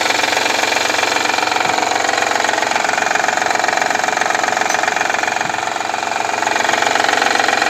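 Honda Elysion's 3.0-litre V6 idling with a steady rattling knock from the head of the deactivatable cylinder bank. The mechanic compares it to worn camshafts or knocking connecting rods, though the engine still pulls normally.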